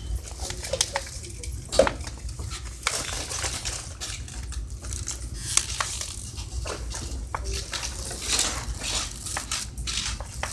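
Plastic water bottle being twisted and squeezed, crackling in a run of scattered cracks and clicks, the sharpest about two seconds in, meant to pass for a neck cracking.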